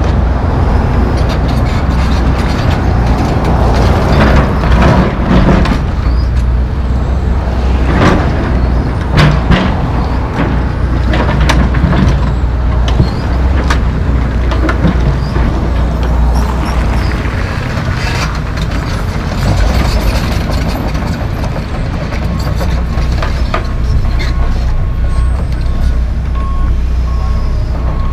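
John Deere 245G track excavator's diesel engine running under load while it digs, with clunks and scrapes of the bucket in dirt and broken concrete. Near the end a backup alarm starts beeping at an even pace.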